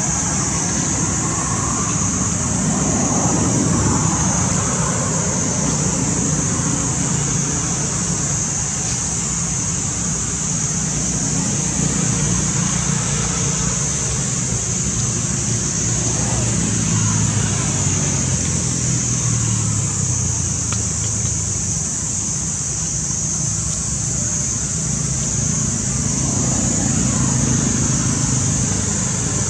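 Steady outdoor background noise: a continuous high-pitched hiss over a low, shifting rumble, with no distinct event standing out.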